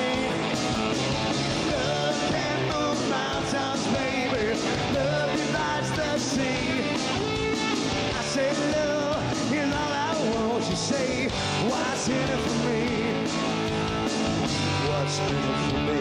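Live rock band playing loud: distorted electric guitar, a drum kit pounding a steady beat, and a lead vocalist singing over them.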